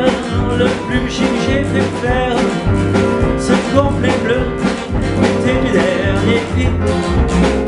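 A man singing to his own digital piano playing, with a strummed acoustic guitar alongside, in a steady rhythm.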